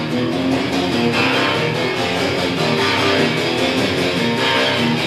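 Steel-string acoustic guitar strummed fast in a steady rhythm, with no singing over it.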